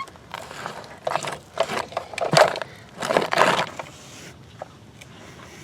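Dirt crunching and scraping under a toy loader's bucket in several rough bursts, the loudest about two and a half and three and a half seconds in, then dying down.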